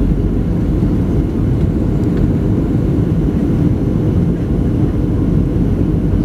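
Steady low roar inside a passenger airplane's cabin as it descends to land: engine and airflow noise, even and unbroken.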